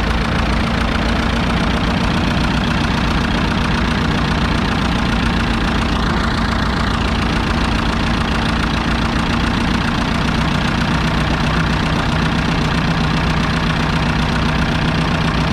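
1942 Fordson Model N's 4.4-litre four-cylinder petrol/TVO engine idling steadily.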